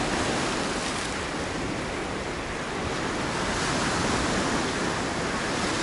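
Small waves of a calm sea washing up on a pebble beach: a steady rush of surf that eases a little and swells again.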